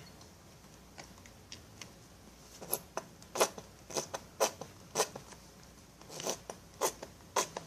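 A squeeze bottle of acrylic craft paint being squeezed out over a bowl. It gives a run of short, sharp squirts and clicks, about two a second, starting about three seconds in.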